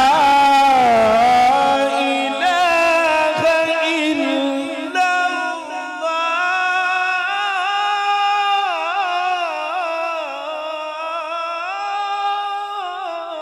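A solo voice chanting the Quran in the melodic tajweed style. It draws out long held notes with wavering, ornamented turns and slow glides in pitch, with no accompaniment.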